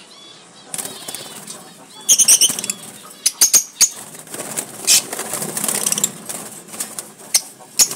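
Lovebirds fluttering around a cage, their wings flapping, with shrill high chirps and sharp calls breaking in from about two seconds in.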